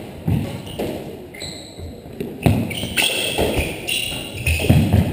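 Doubles squash rally: the hard rubber ball struck by racquets and smacking off the walls several times at irregular intervals. Between the hits come short high squeaks and shuffles of court shoes on the hardwood floor.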